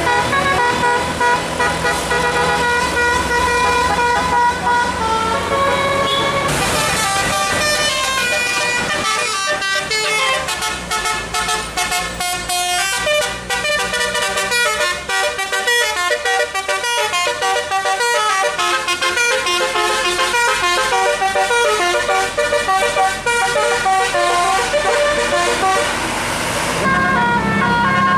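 A bus's telolet musical air horn playing a melody: held notes for the first several seconds, then a fast run of quickly changing notes from about six seconds in, settling back to held notes near the end.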